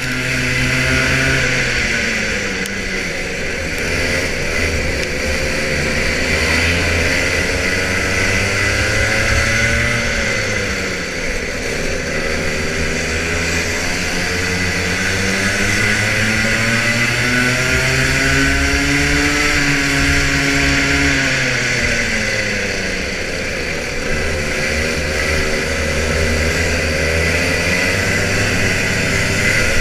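Rotax Junior Max 125cc two-stroke kart engine heard from the driver's seat while racing, its revs climbing and dropping several times as it accelerates down the straights and slows for corners, with a steady hiss over it.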